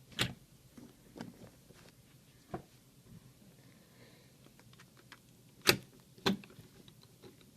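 Irregular sharp clicks and taps from handling silver bullion coins and their plastic tube packaging. The two loudest come about half a second apart, a little past the middle.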